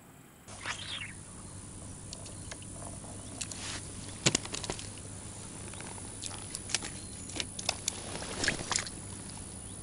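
Scattered sharp clicks and knocks of a float rod, line and clothing being handled as a small fish is lifted out of the water, over a faint steady hum. A short chirp sounds about a second in.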